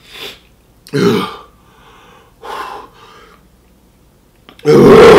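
A man's short, loud throat noises, like throat clearing or grunts, one about a second in and a louder one near the end, with fainter breaths between, from a man eating extremely spicy hot fried chicken.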